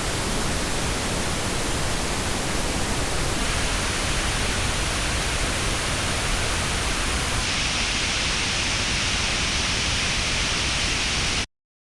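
Pink-noise test signal played through Apple AirPods earbuds and recorded in an artificial ear, a steady even hiss for frequency-response measurement. Its treble balance shifts twice, about three and a half and seven and a half seconds in, and the noise cuts off abruptly about half a second before the end.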